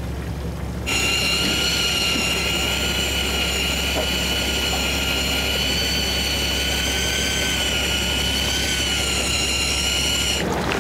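Shimano Beast Master 2000 electric reel winding in a hooked fish: a steady, high motor whine that starts about a second in and cuts off near the end, wavering slightly in pitch. A low, steady boat hum runs underneath.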